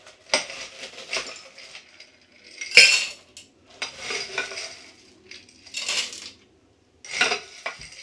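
Ice cubes being put into a cocktail shaker, clattering and clinking in about six separate bursts, the loudest and sharpest about three seconds in.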